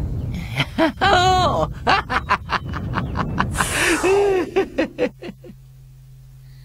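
A cartoon wolf's exaggerated villain laugh: drawn-out rising-and-falling cackles broken by a quick run of 'ha-ha' pulses, tapering off about five seconds in, over a low rumble.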